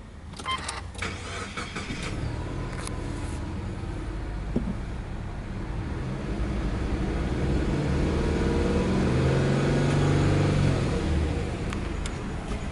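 Subaru Legacy 2.0GT spec B's EJ20 flat-four engine starting: a short burst of cranking and catching at the start, then a steady idle at about 1,000 rpm. A little past halfway the revs rise slowly and fall back near the end.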